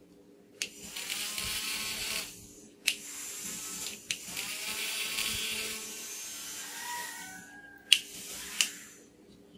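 Small battery-powered motor of a toy bubble gun whirring in two runs, one short and one longer, its pitch gliding as it spins up and down, with sharp clicks between the runs and twice near the end.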